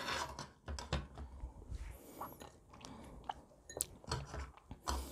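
Kitchen knife cutting mango into cubes on a plastic cutting board: faint, scattered clicks and light scrapes of the blade on the board.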